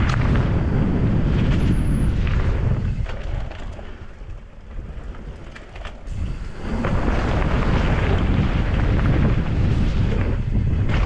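Downhill mountain bike riding a rough, wet trail: loud wind rumble over the microphone mixed with tyre and frame noise. It drops away for about three seconds in the middle, then builds again.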